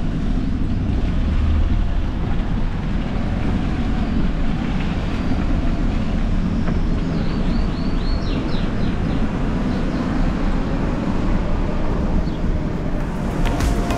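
Wind buffeting the microphone and rolling rumble from a bicycle ride along a paved street, a steady low noise. A short run of high chirps comes about seven seconds in.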